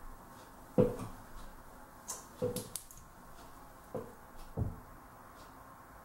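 A few short knocks and clicks of small objects being handled and set down, the loudest about a second in, with a quick run of sharper clicks between about two and three seconds in.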